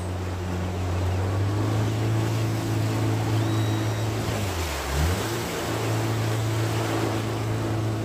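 Outboard jet motor running steadily, its engine speed dipping and coming back up about halfway through. Rushing water from the rapids and wind noise run underneath.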